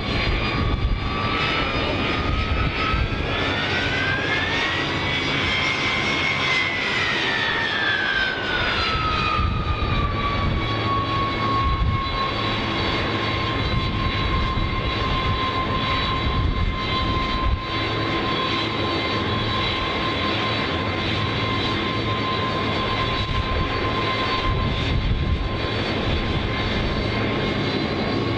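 Jet aircraft engines running over a steady rumble, with a turbine whine that rises in pitch a few seconds in, peaks, and falls back to a steady pitch after about ten seconds.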